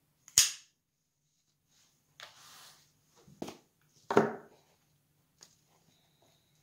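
Scissors snipping once through a green geranium stem, a single sharp click about half a second in. Then a brief rustle of leaves and soft knocks as the cuttings are handled, one just after four seconds about as loud as the snip.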